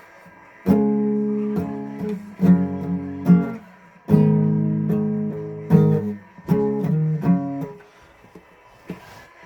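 Acoustic guitar strummed, a run of chords each struck sharply and left ringing, stopping a little before the end.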